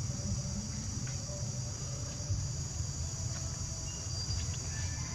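Steady high-pitched chirring of an outdoor insect chorus, with a constant low rumble underneath.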